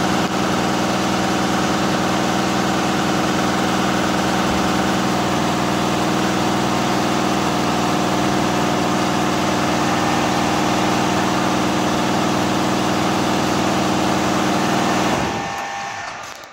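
Richpeace 12-head flat embroidery machine running a test stitch-out: a steady, loud mechanical run with the fast, even rhythm of the needles stitching. Near the end the sound dies away.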